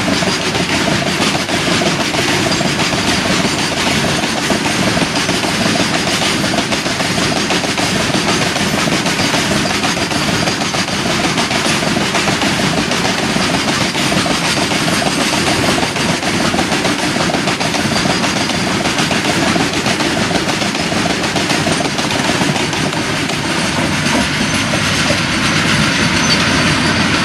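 Freight train of BCNHL covered hopper wagons rolling past, a steady clatter of wheels on the rails.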